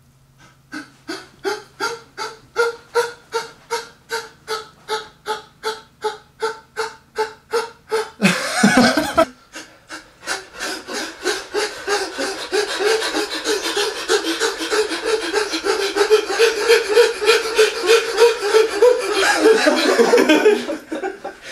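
Men panting heavily in rhythm, each breath voiced, at about four breaths a second. There is a loud breathy burst about eight seconds in. After that the panting from more than one voice gets denser and faster as they try to match each other.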